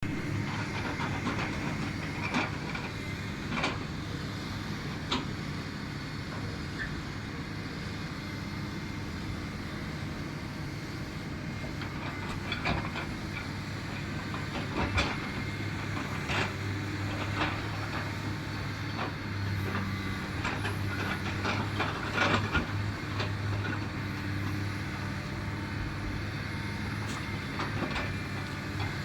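Hydraulic excavator's diesel engine running steadily, with scattered knocks and clanks every few seconds as it works, a louder cluster about 22 seconds in.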